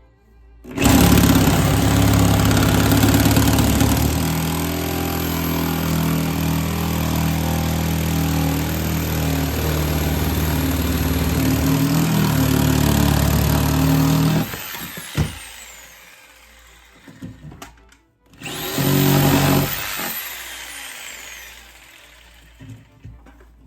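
Electric jigsaw cutting through a door: a long run of about fourteen seconds, after which the motor stops and winds down with a falling whine. It starts again near the end for a short run of two or three seconds and winds down again.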